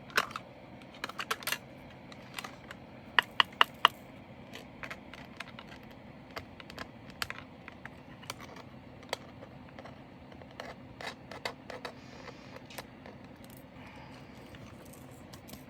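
Scattered sharp clicks and taps from handling small plastic storage containers and bags of diamond-painting drills, with a quick run of four louder clicks about three seconds in.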